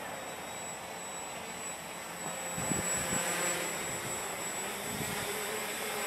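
Walkera Hoten-X quadcopter's electric motors and propellers buzzing in flight, growing louder about halfway through as it comes closer, with the motor pitch wavering near the end.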